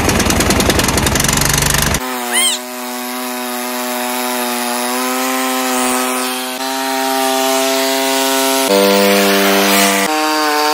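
A 15 hp Kohler Command engine on a Scotts by John Deere hauler lawn tractor runs just after being started on starting fluid. It first gives a loud rapid chatter, then about two seconds in settles into a steady buzzing drone that shifts a little in pitch a few times.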